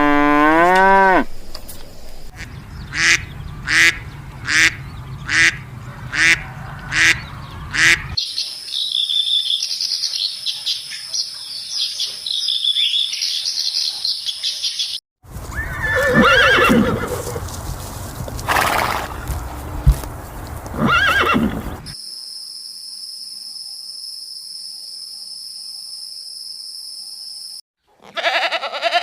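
A sequence of different animal calls: a cow's moo fading out at the start, then seven short calls in an even rhythm, other calls, and a steady high-pitched buzz, with a goat's bleat beginning at the very end.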